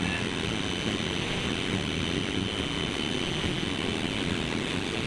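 Steady hissing rush of static from a CRT television with no signal, with a faint steady high whine on top.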